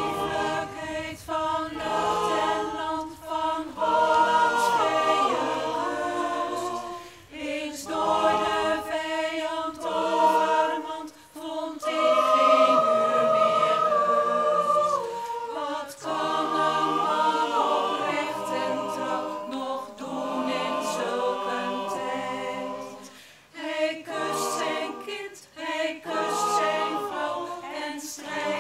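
Mixed choir of men's and women's voices singing a slow piece, in phrases separated by brief pauses.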